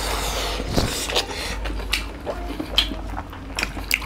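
Close-up eating sounds from two people eating chicken curry and rice by hand: chewing, lip smacks and fingers squelching through the food, heard as scattered short clicks and soft wet noises over a steady low hum.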